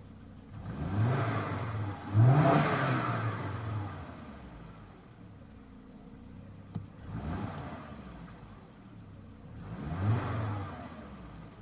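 Volvo S80 T5's turbocharged five-cylinder engine idling and blipped four times, each rev rising and falling back to idle, the second the highest and loudest. This is a car with an intermittent misfire that keeps logging an ignition coil B fault. A single sharp click comes about seven seconds in.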